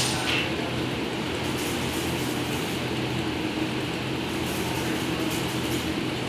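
Steady low machine hum over a continuous hiss, holding an even level.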